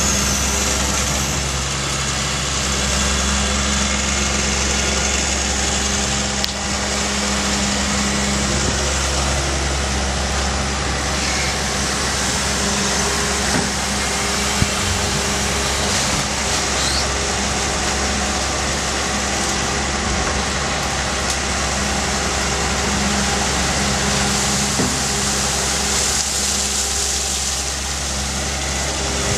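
Diesel engine of a Doosan amphibious excavator running steadily, with a deep, even hum and an occasional faint click.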